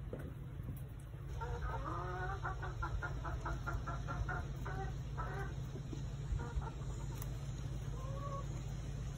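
Chickens clucking: a fast run of short clucks lasting about four seconds, then a single short call near the end, over a steady low rumble.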